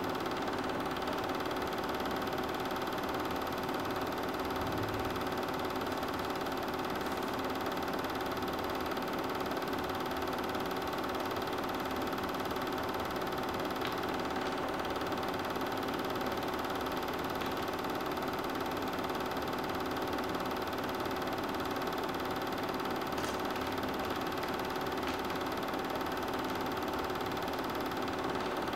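Super 8 film projector running: a steady mechanical hum with several constant tones.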